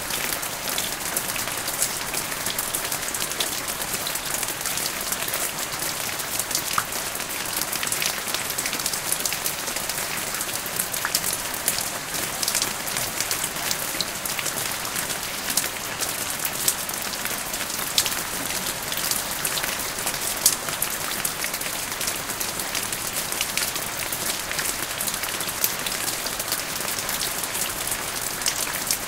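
Steady rain falling, with many individual drops ticking sharply.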